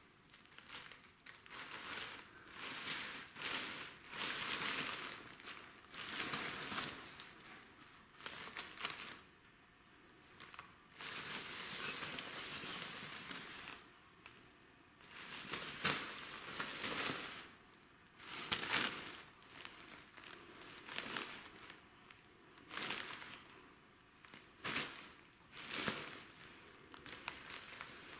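A cellophane bag crinkling and rustling in irregular bursts as a kitten pounces on it, pushes it around and crawls underneath it. There is one longer unbroken stretch of crinkling about halfway through.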